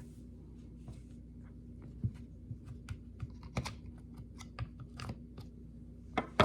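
Scattered small clicks and taps of plastic parts being handled while a replacement DeWalt DCF887 impact driver housing is fitted together by hand, with a sharper click near the end. A steady low hum runs underneath.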